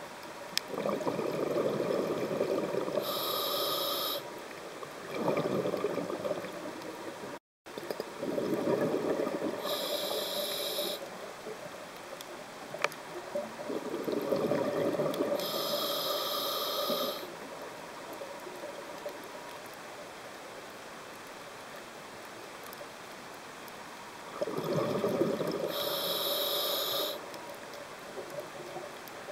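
Scuba diver breathing through a regulator underwater: four short hissing inhalations, each with a longer rush of bubbles as the diver breathes out.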